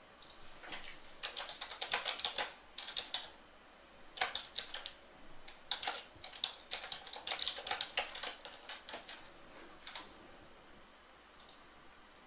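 Typing on a computer keyboard in irregular bursts of quick keystrokes, stopping about ten seconds in.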